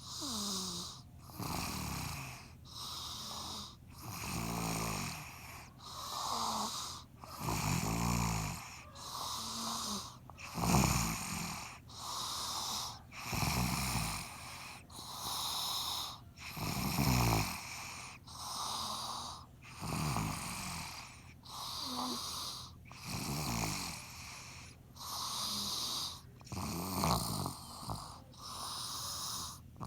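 A person snoring loudly and steadily, one rasping breath after another every second or two, some with a low buzzing rattle.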